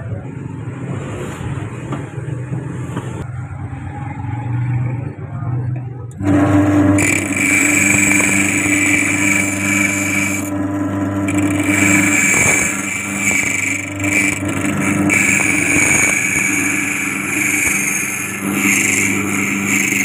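Key-cutting machine running with a steady hum; about six seconds in its rotary cutter wheel starts cutting into a metal car key blank, and a louder, steady metallic grinding whine takes over.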